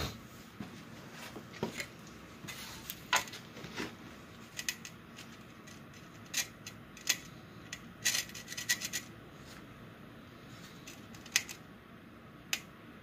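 Bricks being set and shifted by hand against a steel straightedge during stove bricklaying: a scatter of short clicks and scrapes of brick on brick and on metal, with a quick run of them a little past the middle.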